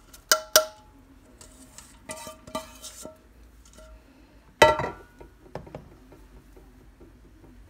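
Glass bowl clinking against the rim of a steel cooking pot while grated carrots are scraped out of it with a wooden spoon, a few sharp ringing knocks with scraping between them, then one louder clank about four and a half seconds in.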